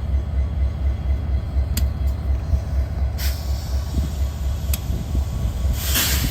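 Parked Metra diesel locomotive idling with a steady, pulsing low drone. Two short hisses come through, about three seconds in and near the end.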